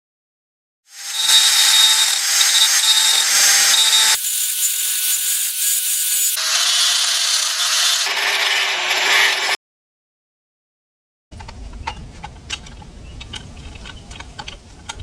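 Cordless angle grinder with its disc cutting into work: a loud, high-pitched grinding whine in several abrupt segments that cut off suddenly. After a pause, a quieter stretch of sharp clicks and ticks.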